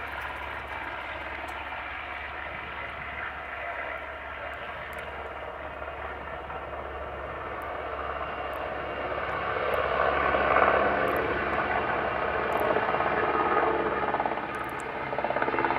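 PZL W-3 Sokol helicopter's twin turboshaft engines and rotor at take-off power. The sound grows louder a little past halfway as the helicopter lifts off and climbs away, with a rapid beat from the rotor blades.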